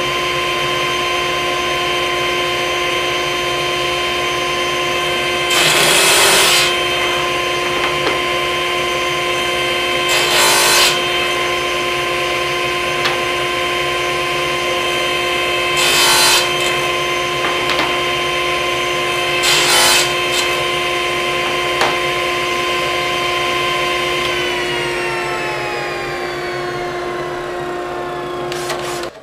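Table saw running with a steady whine, making four short cuts a few seconds apart as the corners are knocked off a wooden strip. Over the last few seconds the motor is switched off and its whine falls as the blade winds down.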